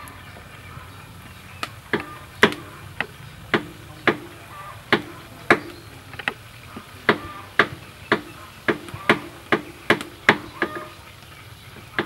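Rhythmic chopping: about eighteen sharp strokes at roughly two a second, starting a little under two seconds in and stopping near eleven seconds.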